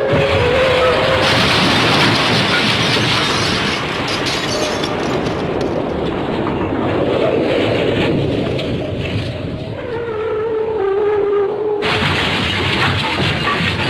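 Stock MGM cartoon crash sound effect, edited: a long, loud rumbling crash, with a tone sliding downward at the start and again about ten seconds in.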